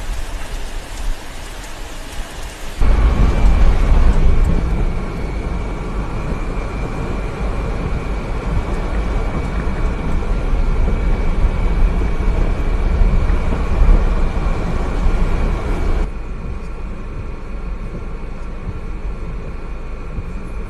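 Rainstorm recorded in several joined clips: an even hiss of heavy rain, then about three seconds in a sudden, much louder low rumble of the storm, which drops to a quieter rumble near sixteen seconds.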